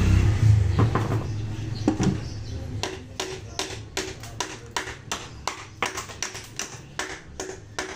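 Hand tools on electrical wire ends: a steady run of sharp clicks, about three a second, starting about three seconds in. A vehicle engine rumble fades out over the first two seconds.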